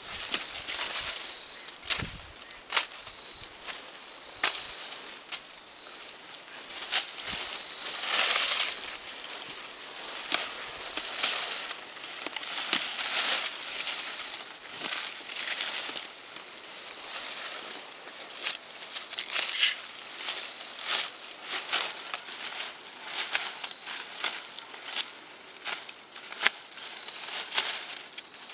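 Steady high-pitched chirring of insects, with scattered short clicks and light knocks throughout.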